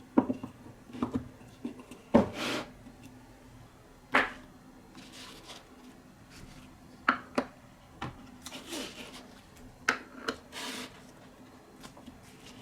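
Marbles clacking and bouncing on a wooden marble run: about a dozen sharp knocks at irregular intervals, some followed by a short rushing noise lasting under a second.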